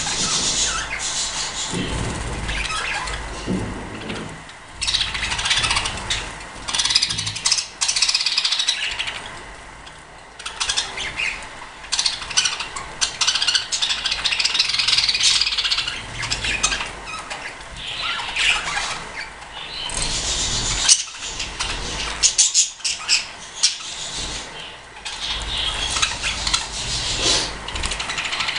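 A flock of budgerigars chattering, with continuous warbling and chirping. There is a sharp click about three quarters of the way in.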